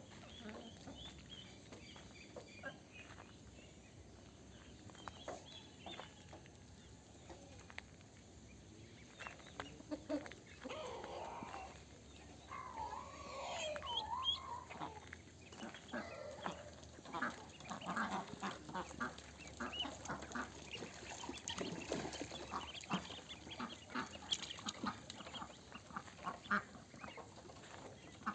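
A flock of domestic ducks and ducklings calling: scattered quacks and chatter. The calls grow busier and louder about a third of the way in.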